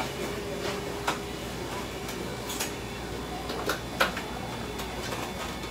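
Light clatter of things being handled: a few scattered sharp clicks and knocks, the loudest about four seconds in, over a steady low background hum.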